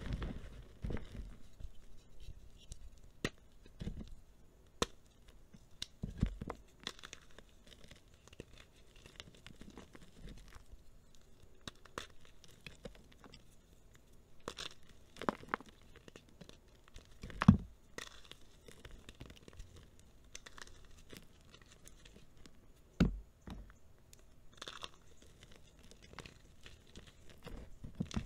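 Hands crushing dried chunks of re-formed gym chalk in a bowl of chalk powder: soft crumbling with scattered crunches, and two sharp snaps as harder pieces break, the loudest about two-thirds of the way in and another a few seconds later.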